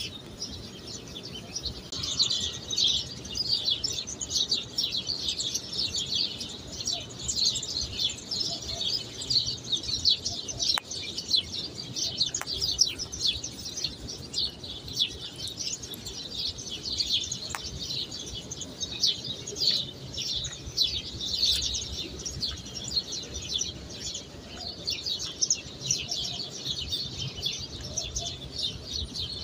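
Many small birds chirping in a dense, unbroken chorus of short high chirps, growing louder about two seconds in.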